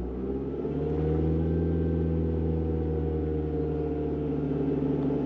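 Volkswagen car engine being revved up slowly: its pitch rises over the first second or so, then holds at a steady raised speed.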